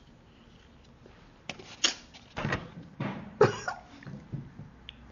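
Handling noise from makeup palettes: a run of short clicks and knocks between about a second and a half and four and a half seconds in.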